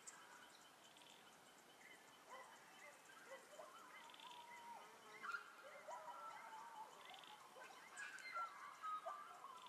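Faint birdsong: irregular warbling and chirping calls, some rising and falling in pitch, over quiet background hiss.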